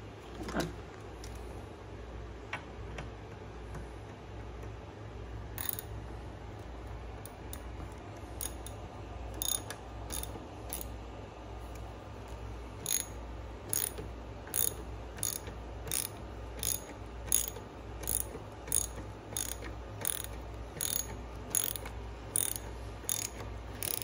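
Hand socket ratchet clicking as a bolt is driven in: a few scattered clicks at first, then regular clicking strokes about two a second through the second half, over a steady low hum.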